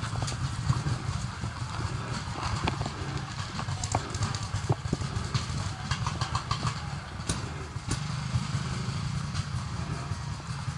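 Paintball game heard from a camera carried by a moving player: a steady low rumble of movement on the microphone, with scattered sharp cracks of paintball markers firing across the field.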